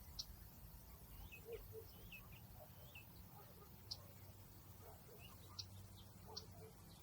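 Faint outdoor nature ambience: small birds give scattered short, high chirps, about four sharp ones plus a few soft gliding notes, over a low steady background rumble.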